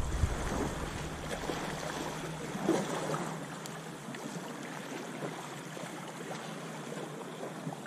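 Small sea waves lapping and washing over pebbles and rocks at the shoreline, with wind rumbling on the microphone that dies away about two seconds in.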